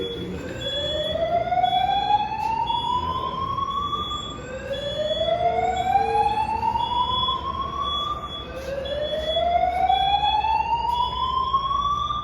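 Building fire alarm sounding its evacuation tone: a whoop that rises steadily in pitch over about four seconds, then restarts, three times over. A short high-pitched beep repeats alongside it.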